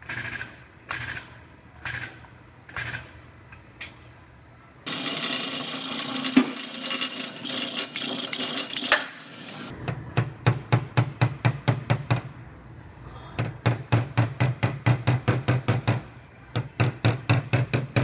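Hammer tapping on the buckled sheet-metal quarter panel of a rear-ended Hyundai Sonata to relax the buckles, in quick runs of several strikes a second through the second half. Before that, a few single knocks about a second apart, then a steady rushing noise for about five seconds.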